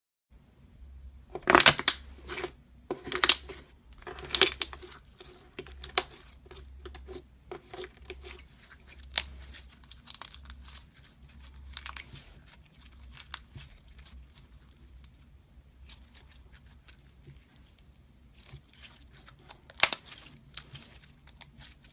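Slime being squeezed and pressed by hand, giving sharp crackling pops and crunches. They come in loud clusters in the first five seconds and again near the end, with lighter scattered clicks in between.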